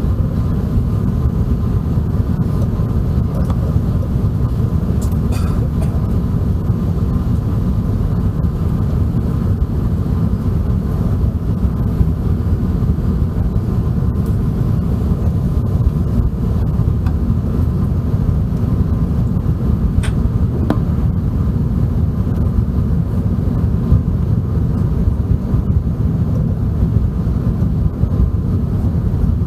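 Steady cabin noise inside an Airbus A380 airliner in flight: a constant low rumble of airflow and Rolls-Royce Trent 970 engines with a faint hum, broken only by a couple of faint clicks.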